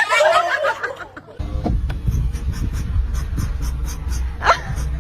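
A dog making strange wavering vocal noises for about a second, then a steady low rumble with one short sharp call near the end.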